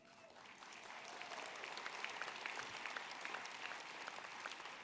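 Audience applauding, swelling over the first second or two and then slowly tapering off.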